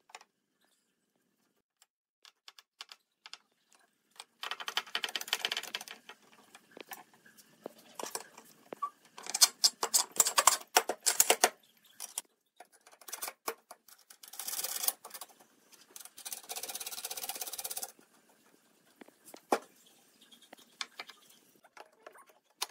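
Pine boards scraping and knocking against steel bar clamps and the workbench as they are pushed and shifted into line for edge-gluing. The scraping comes in several bursts of rapid scratchy clicking, with single knocks in between.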